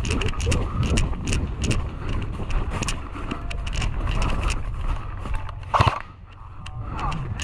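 Footsteps through dry leaf litter and brush, with irregular sharp rustles and twig snaps over a low rumble of movement and wind on a body-worn camera. There is one louder sharp knock about six seconds in.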